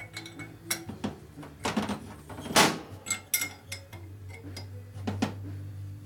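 Metal hand tools clinking and knocking against each other and the Panhead's aluminium cylinder head on a workbench. Several separate clanks, the loudest about two and a half seconds in, over a steady low hum.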